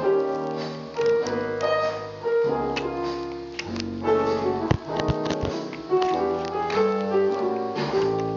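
Background piano music, a steady melody over chords.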